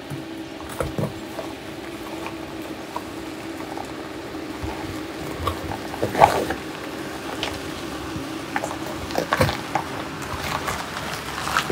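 A Mitsubishi SUV creeping over a rocky dirt track, its tyres crunching and popping on loose stones and dry leaves over a low steady engine hum. The crackles grow louder and more frequent from about halfway through as it comes close.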